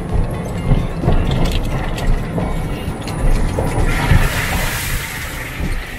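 Golf cart driving along a wet paved cart path, with a steady low rumble and irregular rattling of the cart body. About four seconds in, a hiss of tyres on wet pavement rises for a second or so and fades.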